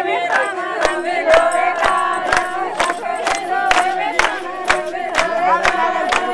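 A group of women singing loudly together over a steady percussive beat of about two strong strokes a second.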